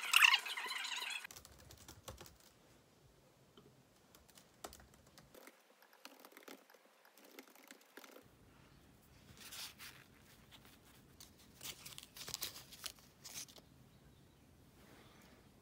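Typing on a MacBook laptop keyboard: scattered soft key clicks with a few short quick runs of keystrokes. It opens with about a second of louder clattering and rustling that cuts off suddenly.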